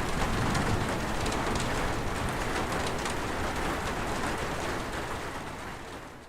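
Steady rain falling, with individual drops ticking on a surface, fading out near the end.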